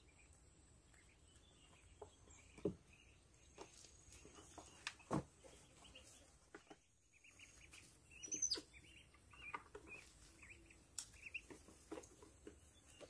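Mostly quiet, with a few sharp light taps, the loudest two about three and five seconds in, and faint high chirps scattered through.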